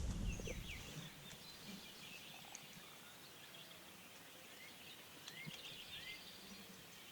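Birds calling faintly in the open: short rising chirps and trills scattered through, after a low rumble that fades out in the first second.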